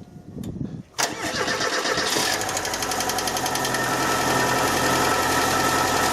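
Ford CVH 1.6-litre eight-valve fuel-injected engine cold-started after standing a day: the starter cranks briefly and the engine catches about a second in, then runs at idle. A strong rapid ticking from hydraulic lifters drained of oil is loudest just after it catches and eases as oil reaches them.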